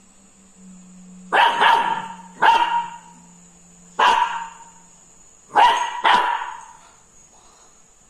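Labrador puppy barking at a ladle it is scared of: six short, sharp barks, two in quick succession, then one, one more, and a final quick pair.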